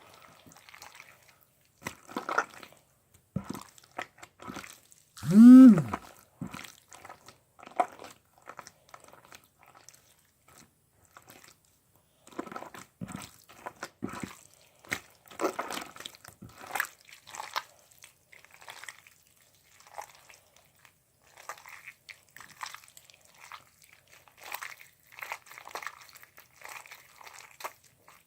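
Slime being squeezed and mixed in a plastic bottle: irregular squelching and crackling clicks, with one loud pitched squeak about five seconds in.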